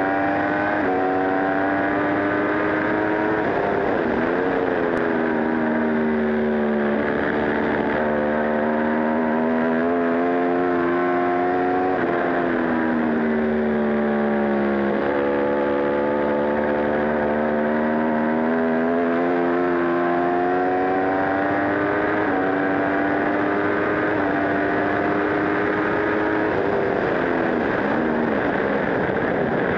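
Aprilia RSV4 superbike's V4 engine running hard through the gears. Its pitch climbs steadily and drops sharply at each gear change, several times over. A steady rush of wind noise at speed lies beneath it on the onboard microphone.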